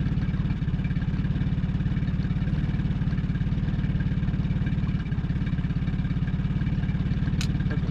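Boat's outboard motor running steadily with an even pulsing hum. A brief high tick sounds near the end.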